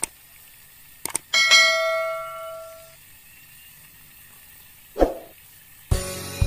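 Subscribe-button animation sound effects: a mouse click, a quick double click about a second in, then a bright bell ding that rings out and fades over about a second and a half. Near the end a short swish sound, then music begins.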